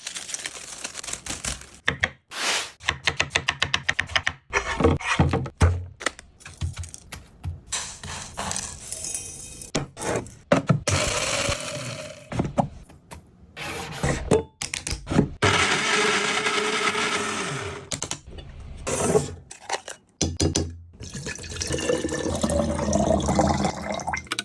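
Quick-cut series of kitchen food-preparation sounds: sharp knocks and clicks, stretches of splashing or pouring liquid, and a short steady whirring stretch like a blender.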